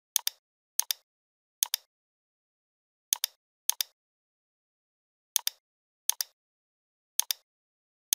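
Computer mouse clicks, each a quick double tick of button press and release, about eight of them at uneven intervals with nothing heard in between.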